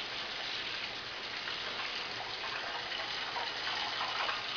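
Oyster mushrooms deep-frying in a small pot of hot oil: a steady, dense sizzle, with a few light crackles near the end.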